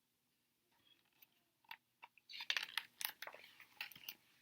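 A book's paper page being turned: faint rustles and small clicks starting a little under two seconds in, busiest around the middle.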